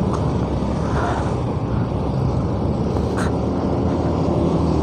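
Motorcycle engine running steadily under way, mixed with steady wind and road noise.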